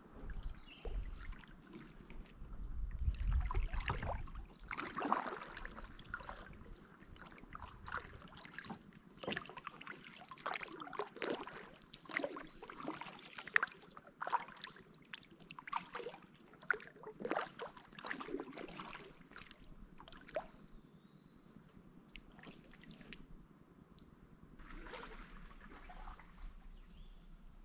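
Water splashing, trickling and dripping around a kayak drifting down a shallow river, in many small irregular splashes, with a low rumble about three seconds in. The splashing thins out to a quieter water trickle in the last several seconds.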